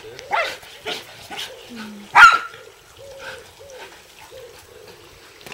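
Belgian Shepherd (Groenendael) dog barking in play, a few short barks with one loud bark about two seconds in.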